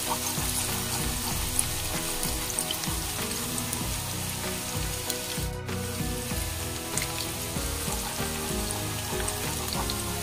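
Minced garlic sizzling and crackling in plenty of hot oil while a wooden spatula stirs it through the pot.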